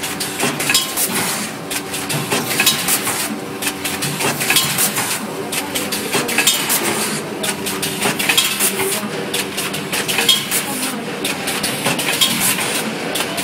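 Rotary pouch packing machine running: rapid metallic clattering and clicking from its spinning gripper carousel, over a steady mechanical hum.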